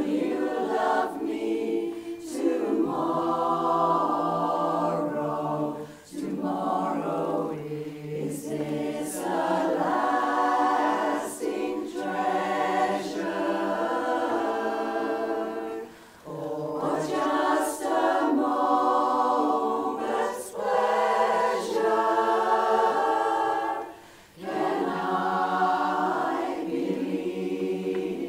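Women's chorus singing a cappella in harmony, with short breaks between phrases.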